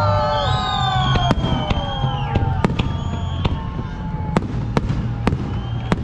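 Fireworks going off: about ten sharp bangs at irregular intervals over a low rumble, with long drawn-out tones sliding down in pitch during the first half.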